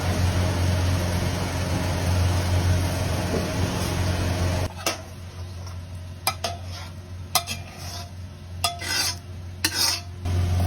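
Food sizzling in a wok over a steady low hum, which both cut off suddenly about halfway through; then a metal spatula scraping and clinking against the wok and a dish as braised crucian carp and eggplant is dished up.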